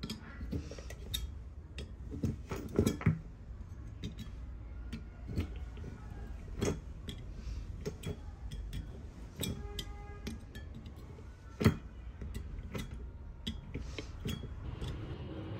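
A metal tool tip clicking, tapping and scraping against the thin aluminium fins of a CPU heatsink in irregular ticks, with a few sharper strikes and a short metallic ring from a fin about ten seconds in. A steady low hum runs underneath.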